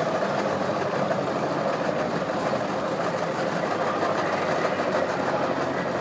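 A motorboat engine idling steadily with an even drone.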